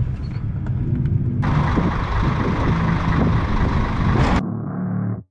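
Diesel engine of a semi-truck running at low speed as it manoeuvres. About a second and a half in, a loud steady hiss covers it for about three seconds. Near the end the sound cuts abruptly to a quieter engine.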